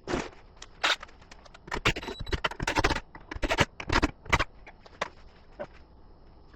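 A run of irregular knocks, clicks and scrapes of hardware being handled, as the swivel wall mount and the Echo Show on it are shifted and adjusted; the sounds crowd together for about four and a half seconds, then a few lighter ticks follow.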